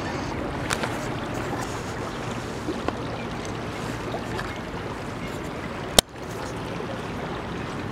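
Steady rush of water and wind from a boat under way on a lake. A single sharp click about six seconds in.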